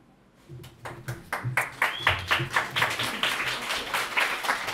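Audience applauding: clapping begins about half a second in and quickly thickens into steady, dense applause.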